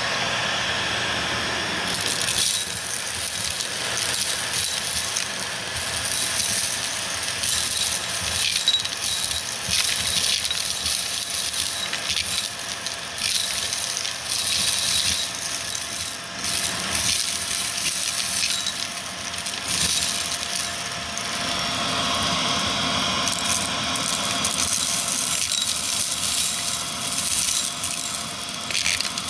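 Vacuum cleaner running steadily while sucking up crunchy debris that crackles and rattles through it. The sound changes about two seconds in, and again about two-thirds of the way through.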